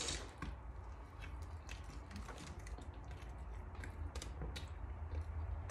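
Close-up eating sounds: scattered light clicks and crackles from handling and biting into a loaded vegan burger, over a low steady hum.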